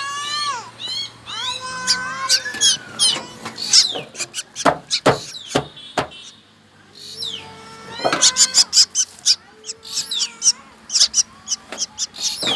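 Black drongo nestlings begging for food: rapid shrill chirps and squeaky gliding whistles, with harsher rasping calls, a short lull about six seconds in, then dense chirping again.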